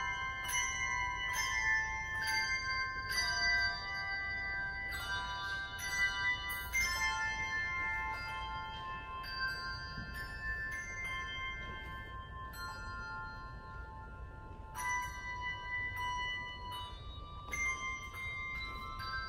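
Handbell choir playing a piece: struck bell notes, often several at once, each ringing on and overlapping the next. The playing eases to softer, held notes a little past the middle, then new strikes come in.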